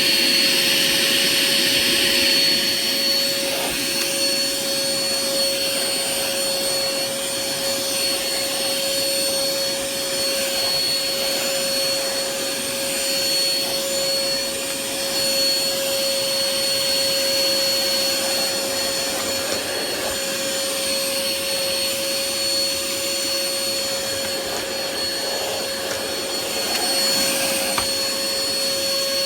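Hoover ONEPWR Evolve Pet Elite cordless stick vacuum running steadily at full speed, with a steady high whine over the rush of air.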